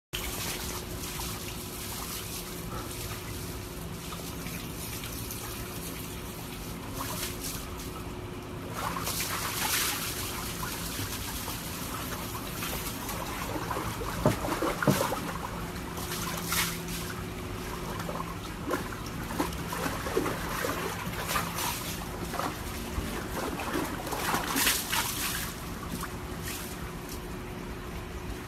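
Water trickling and sloshing in a plastic tub as a husky moves about in it, with louder splashes around ten, fifteen and twenty-five seconds in.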